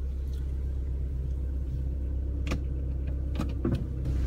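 Car engine running steadily, heard from inside the cabin as a low hum. A few sharp clicks and knocks come about two and a half and three and a half seconds in.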